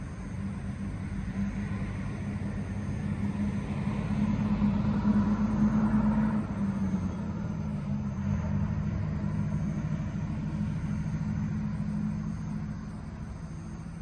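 An engine passing by: a low, steady hum that grows louder to about halfway, drops slightly in pitch after the loudest point, and fades away.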